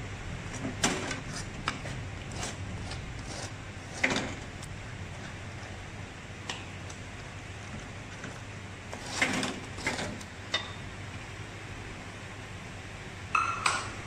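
A metal spoon stirring and scraping a thick spice paste around a wok, in irregular scrapes and knocks over a steady low background. A short ringing clink comes near the end.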